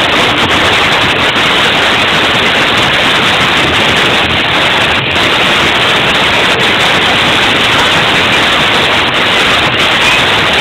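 Loud, steady static-like noise with no clear tones, beat or words.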